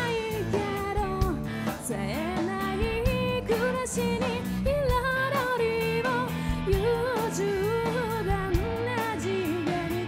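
Live rock band playing: a woman sings the lead melody over electric guitar, bass guitar and drum kit.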